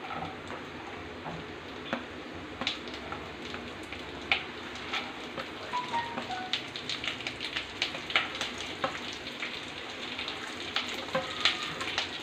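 Chopped nuts and raisins frying in hot ghee in a pan: a steady sizzle with frequent sharp pops and crackles, which come more often in the second half.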